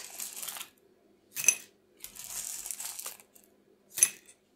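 Metal pie weights being spooned out of a paper-lined tart shell: stretches of loose rattling and scraping, with two sharp, ringing metallic clinks about a second and a half in and near the end.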